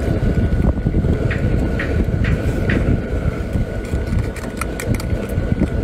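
Steady low rumble of outdoor background noise, with scattered small clicks and taps from eating with chopsticks and a faint steady high tone.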